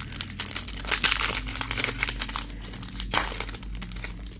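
Plastic trading-card pack wrapper crinkling as it is handled and opened, busiest about a second in, with a sharper crackle about three seconds in.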